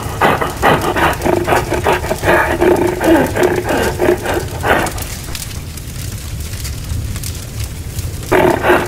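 Creature-like growls and roars in rapid pitched pulses for about five seconds, then only a low rumble, then the growling starts again near the end.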